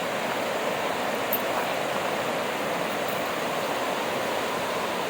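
Waterfall rushing, a steady hiss of falling water with no let-up.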